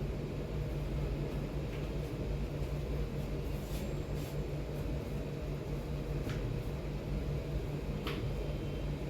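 Steady mechanical hum of room ventilation, fan-like, with a few faint sharp clicks scattered through.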